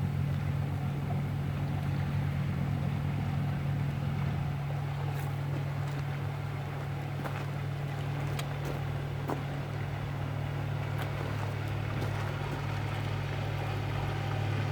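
An engine running with a steady low drone, with a few faint ticks through the middle.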